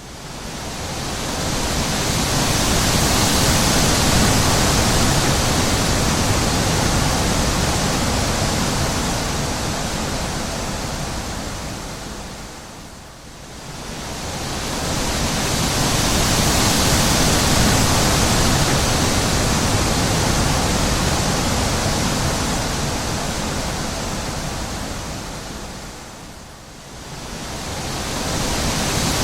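Wind blowing in long gusts, a steady rushing noise that swells and dies away with lulls about every 13 seconds.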